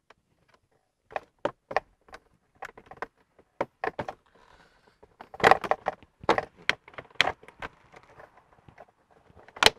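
Plastic lower dashboard trim panel under a Honda City's steering wheel being pulled loose by hand: a series of sharp clicks and knocks as the panel and its retaining clips are worked free, with the loudest snap near the end.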